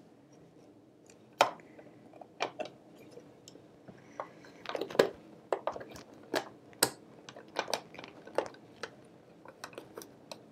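Irregular clicks, taps and knocks as hands grip and pry at the round side cover of a vintage 1970s Kenmore sewing machine, trying to pop it off. The sharpest click comes about a second and a half in.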